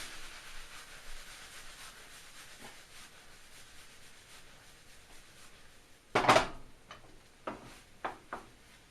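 Shrimp fried rice sizzling faintly in the pan, dying away. About six seconds in, a utensil scrapes loudly across the pan, followed by a few light knocks.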